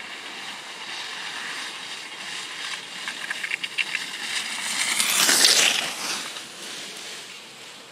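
Cross-country skis swishing on a groomed snow track as a skier glides downhill, with a few light clicks near the middle. The hiss grows louder to a peak about five seconds in as the skier passes close, then fades.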